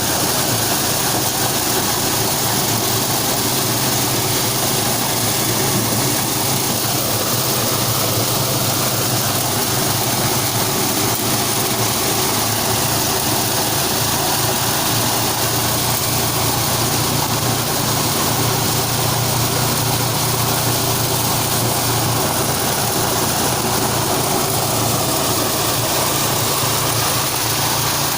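Engine-driven corn machine running steadily, a loud constant drone with a low hum and a hiss over it that does not change.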